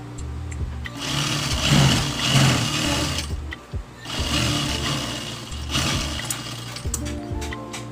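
JUKI industrial sewing machine running in two bursts of a couple of seconds each, stitching a seam in blouse fabric, with a short pause between them.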